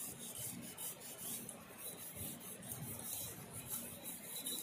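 Lemon half coated in salt scrubbed against a small brass pot (ghoti) in quick, repeated gritty strokes, scouring off black tarnish.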